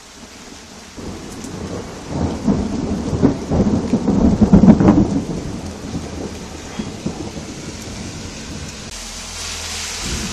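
Thunder: a rumble that builds from about a second in into loud crackling peals near the middle, then rolls away. Steady rain hisses underneath.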